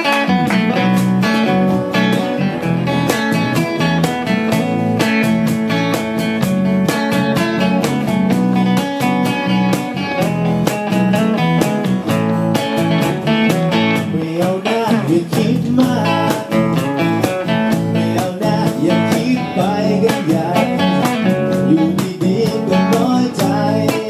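Live acoustic band playing: several acoustic guitars strumming and picking over a steady cajón beat.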